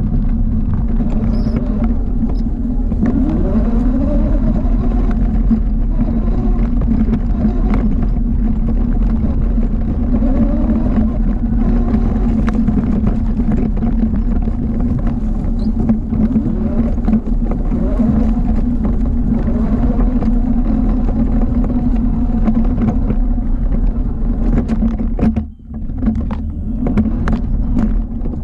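ATV engine running close by, with the revs rising a few times as the throttle is worked, and a brief drop in level about 25 seconds in.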